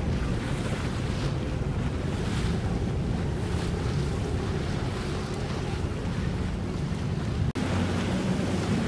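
Wind buffeting the microphone over open water, with water noise and a low steady hum underneath. The sound drops out for an instant near the end, then carries on with the low hum steadier.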